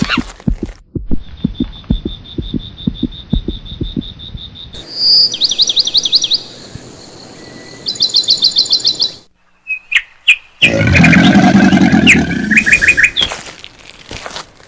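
Birdsong clips spliced together with abrupt cuts. A steady high trill with soft low taps under it, then fast series of high whistled notes, then short chirps over a loud, lower sound near the end.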